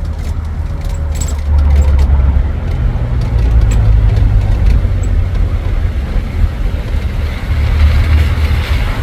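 Steady low rumble of a moving tuk-tuk, its engine and road noise, heard from on board.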